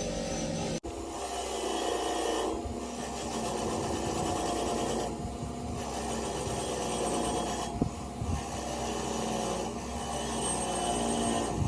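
Rasping, rubbing sound of metal being worked on a synchronizer cone, running steadily with short dips about every two and a half seconds.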